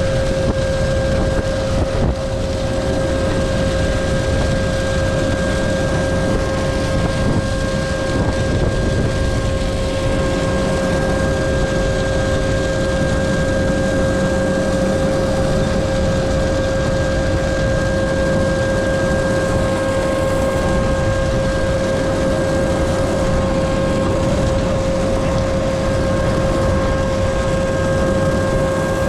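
Tractor engine running steadily under a constant high whine, with no change in speed.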